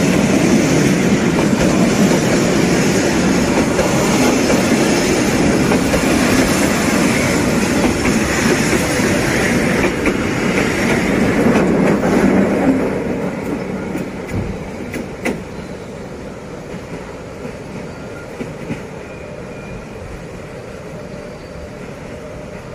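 Freight train of covered wagons rolling past close by on the rails. A little past halfway the last wagons go by and the noise drops to a quieter steady rumble, with a couple of sharp clicks soon after.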